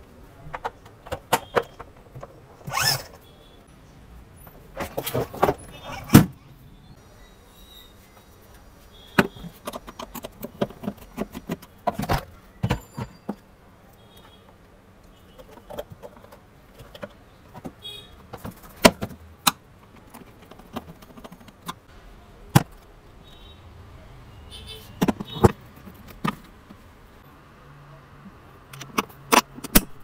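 Irregular sharp clicks, knocks and rattles of hard plastic parts and hand tools being handled while assembling a children's ride-on electric quad bike.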